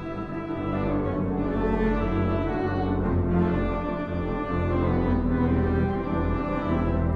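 Barton theatre pipe organ (three manuals, thirteen ranks) playing a silent-film score: full sustained chords over a low bass line, the harmony shifting every second or so.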